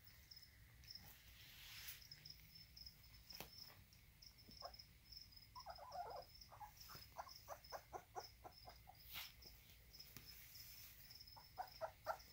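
Faint, steady chirping of crickets kept in lizard tanks. Over it come two runs of quick soft smacking clicks, about five a second, from puppies mouthing and lapping at raw ground beef: one midway and a shorter one near the end.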